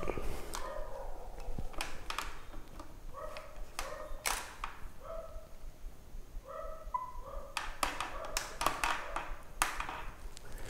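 Clicks and taps from a DSLR camera being handled on a tripod head as it is switched on and adjusted, a dozen or so sharp clicks scattered throughout. Short, faint, evenly pitched tones recur in the background about once a second.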